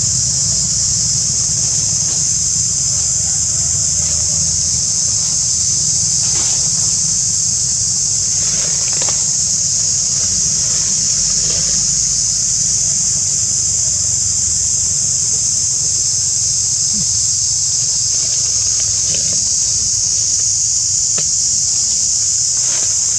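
A steady, high-pitched chorus of insects buzzing without a break, over a faint low rumble.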